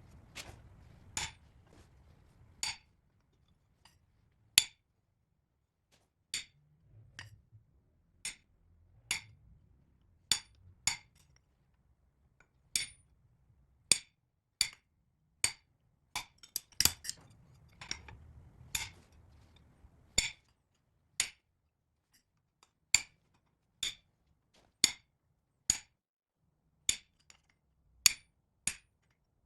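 Hand hammer striking metal on an anvil: single sharp, ringing blows at an uneven pace of about one a second, a few coming in quick pairs.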